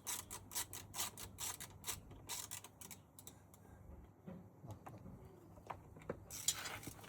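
A quick series of light clicks and taps, about three a second, thinning out after two and a half seconds, then a brief rustle near the end.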